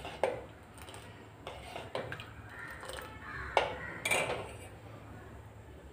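Steel spoon scraping and clinking against the inside of a steel pot while stirring soaked sago pearls in water. There are a few sharp clinks spread through, the loudest about three and a half seconds in, followed by a scrape.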